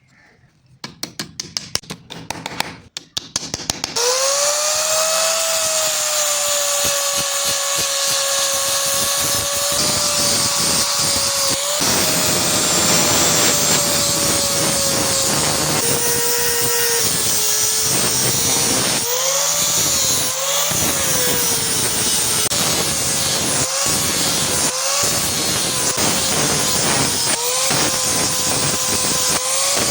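A few seconds of rapid scraping strokes, then an electric power tool runs with a steady whine whose pitch sags and recovers several times as it is pressed into the work.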